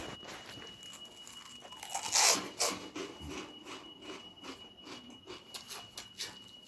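Chewing and crunching on baked snack bites close to the microphone: a run of small crackles, with a louder crunch about two seconds in.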